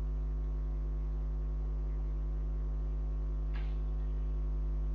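Steady electrical mains hum: a low drone with a row of evenly spaced higher overtones, holding one level throughout.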